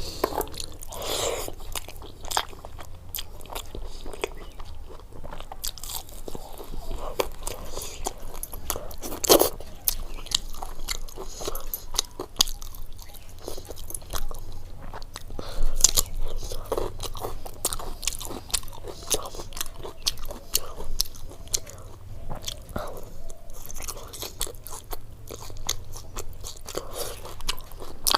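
A person eating close to the microphone: continuous chewing and crunching, with many short wet clicks and a few louder bites, from a home-style Indian meal of khichdi with fried vegetables and pakoras.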